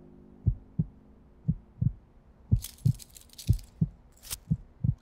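Heartbeat sound effect: five lub-dub pairs of low thumps, about one a second. A brief rustle around the middle and a sharp click about four seconds in.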